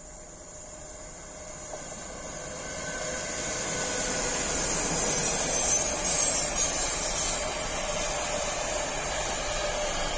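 ÖBB class 1293 Siemens Vectron electric locomotive passing close at the head of a container freight train. The noise builds as it approaches and is loudest about five seconds in, then settles into the steady rolling and hiss of the container wagons' wheels on the rails.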